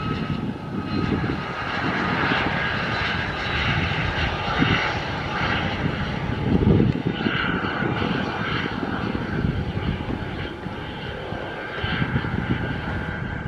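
Aero L-39 Albatros jet trainer's single turbofan engine running as the jet rolls along the runway after touchdown: a steady rushing jet noise, with a thin whine at first that fades within about a second.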